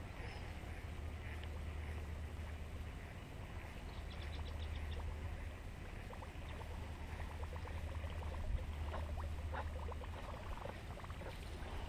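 Water ambience around a small fishing boat: a steady low rumble with faint water lapping, and scattered light ticks and clicks, a short run of them about four seconds in.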